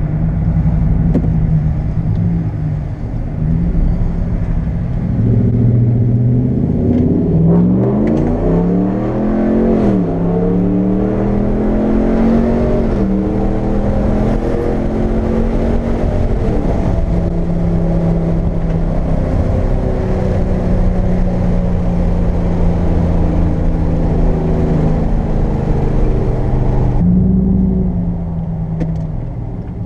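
Ram pickup truck's engine accelerating hard: the revs climb and drop back at three gear shifts, then settle into a steady cruise with road noise, which falls away near the end.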